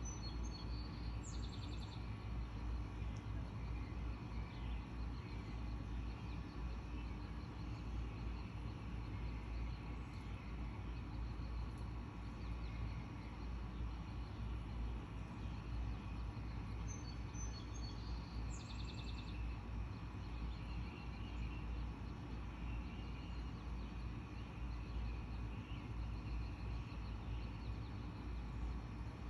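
Outdoor ambience: a steady low rumble of background noise, with a small bird giving a short chirping trill twice, once just after the start and again about two-thirds of the way through.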